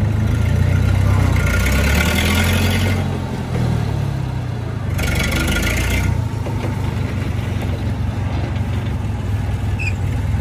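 Cat T40B forklift's propane-fuelled engine running, briefly revved about a second or two in so its pitch rises and falls, with a higher hiss over it in two short stretches.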